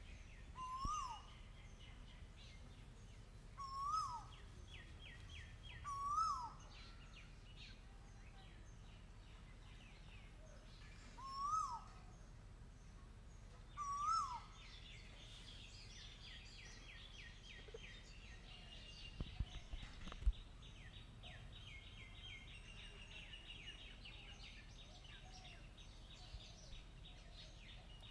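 A koel calling five times, each a short call that rises and then drops in pitch, spaced a few seconds apart and falling silent partway through. Behind it, a rapid high-pitched trill of short repeated notes runs on, with a few faint low knocks a little after the middle.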